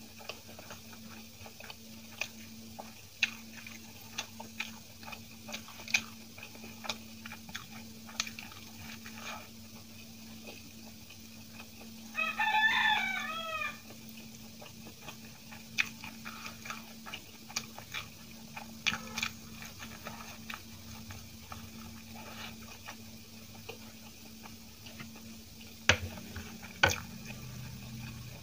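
Close-up mouth sounds of someone eating soft idli by hand: small wet smacks and clicks of chewing. About twelve seconds in, a rooster crows once, loudly, for about a second and a half.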